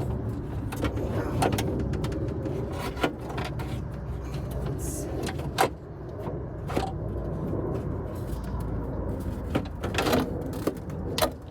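Scattered clicks and knocks of car door parts being handled and fitted back together, over a steady low rumble.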